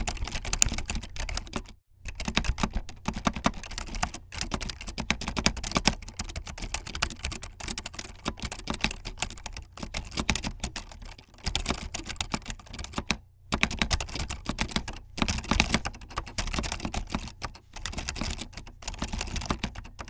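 Steady typing on a Matias Quiet Pro keyboard: a fast run of keystrokes on its quiet, dampened Matias Alps switches, broken by a few brief pauses.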